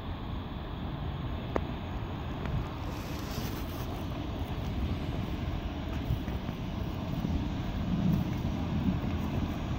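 Track recording vehicle EM50 approaching along the line, a steady low rumble that grows slightly louder.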